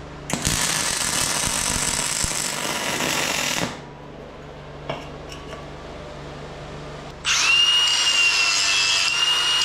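MIG welder laying a short weld, an even crackle lasting about three seconds. A few seconds later an angle grinder starts up and cuts into steel with a steady high whine.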